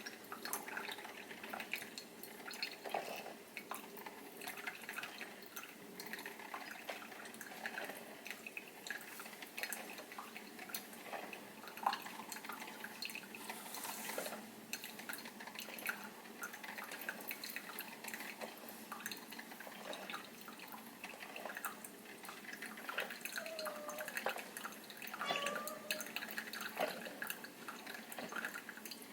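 Proctor Silex single-serve coffee maker brewing ground coffee: irregular faint ticks and drips of water over a low steady hum.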